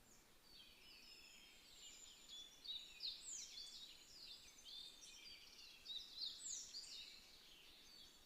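Faint birds chirping: a flurry of short, high, quickly sweeping calls, loudest about three seconds in and again about six seconds in.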